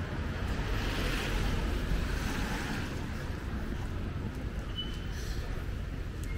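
Steady noise of heavy rain on a wet street, with wind buffeting the microphone as a low rumble.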